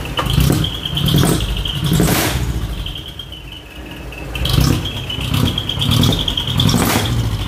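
Mini dump truck engine revved in short repeated throttle blips, about one a second in two runs, each surge sharp through the twin exhaust, with a steady high whine underneath.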